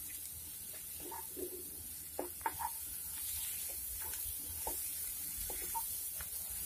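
A spatula stirring and scraping masala in a nonstick kadai, with a steady sizzle of the spices frying in oil and scattered light scrapes and taps on the pan. The masala is being fried until the raw smell of the spices goes.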